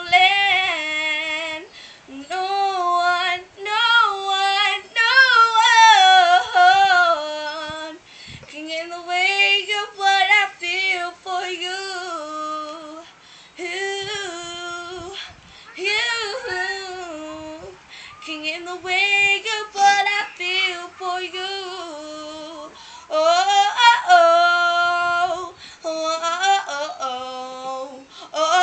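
An 11-year-old girl singing solo without accompaniment: long, loud phrases with sliding runs and vibrato, separated by short breaths.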